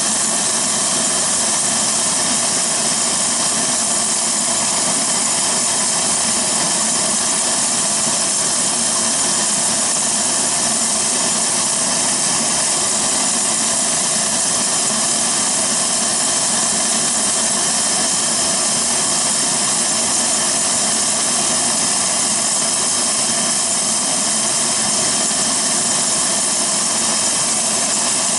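Cessna Citation Sovereign's Pratt & Whitney Canada PW306C turbofan engines idling with the jet standing still: a steady rushing hiss with a high, unchanging whine.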